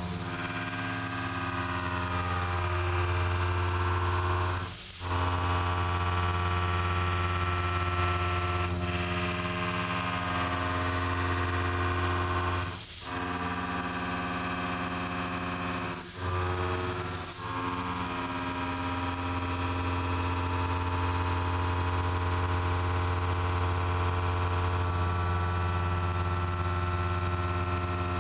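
Kennametal Mill 4-15 shoulder mill cutting 4140 steel on a DMG MORI DMU50: a steady, pitched milling hum with a hiss above it. It dips out briefly about four times.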